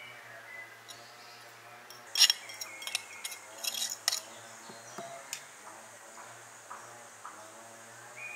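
Spoon clinking and scraping against a ceramic bowl as toppings are spooned out. There is a burst of sharp clinks about two seconds in, the first the loudest, more clinks over the next two seconds, then a few lighter taps.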